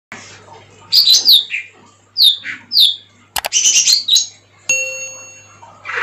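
Caged lesser green leafbird (cucak hijau mini) calling: loud short whistled notes that sweep downward, then a quick rapid run of notes. A sharp click comes about three and a half seconds in, and a ringing ding that fades away follows just before five seconds.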